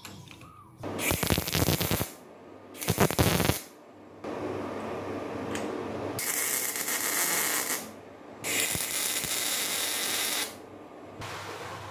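Electric arc welding on a steel frame: the arc crackles and sizzles in several separate bursts, the first two short, then longer runs of one to three seconds with short pauses between.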